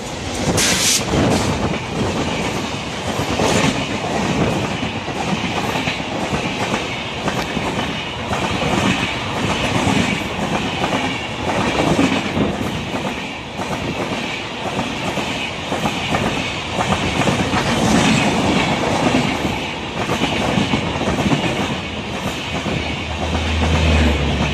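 A WAP-7 electric locomotive and its train of LHB passenger coaches passing close by: a loud, steady rumble with repeated clickety-clack of wheels over the rail joints as coach after coach goes past.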